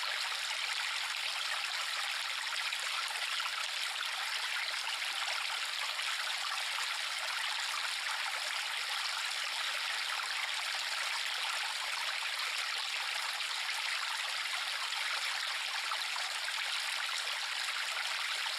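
Steady rushing of a river stream, an even flowing-water sound with no bass.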